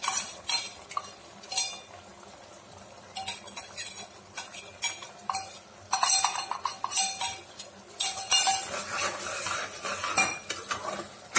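A steel ladle scraping and clinking against an aluminium pressure cooker and a small steel pan as roasted cashews and raisins are tipped in and stirred into thick sweet pongal. Irregular clinks and scrapes, busier and louder from about six seconds in.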